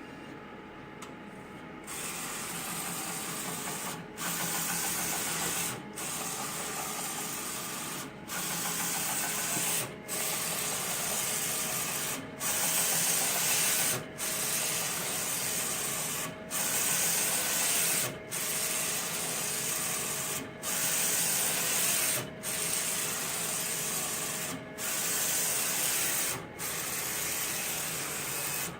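The XR-640's recurring fault noise after repair: a steady hissing whir that starts about two seconds in and runs in stretches of roughly two seconds, each broken by a brief pause.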